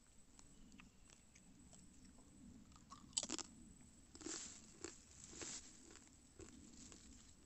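Faint crackling and rustling handling noises close to the microphone, with a sharp click about three seconds in and a few louder rustles after it.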